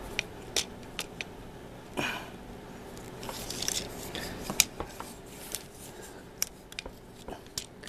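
Plastic parts of a Transformers Hailstorm action figure being handled and pegged together: irregular sharp clicks of plastic snapping and knocking into place over a rustle of fingers working the toy close to the microphone.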